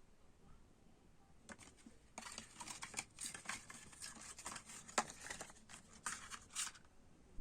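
Hands handling a plastic cassette case and its paper or plastic packaging: a run of crinkles, scrapes and small clicks, with one sharper click about five seconds in.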